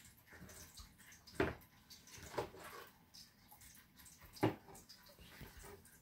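Cardboard Lego set box being pawed and pushed by a cat, giving a few sharp knocks and rattles, the two loudest about a second and a half and four and a half seconds in.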